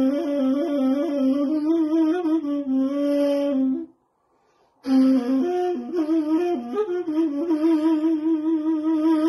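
Persian ney, an end-blown reed flute, playing a melody with quick small ornaments around the notes. It breaks off for about a second near the middle for a breath, then comes back in.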